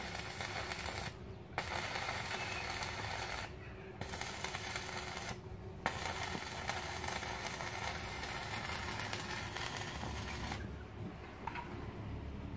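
Stick (arc) welding on the steel pulley end of a rice thresher's drum. The arc runs continuously, breaks off briefly three times in the first six seconds, and stops about ten seconds in.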